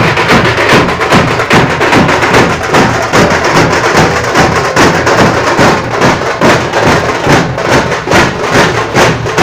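Several dhol drums beaten with sticks, playing a loud, steady, driving rhythm of rapid strikes.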